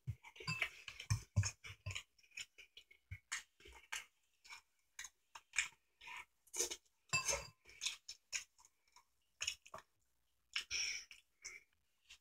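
A person chewing and eating ramen noodles close to the microphone: irregular wet mouth smacks and short clicks.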